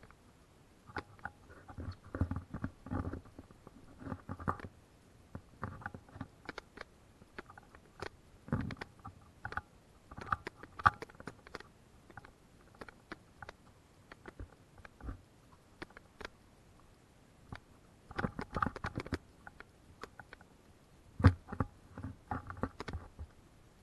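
Footsteps through forest undergrowth, with leaves and twigs crackling and brushing, in irregular clusters of short knocks and scrapes separated by brief pauses.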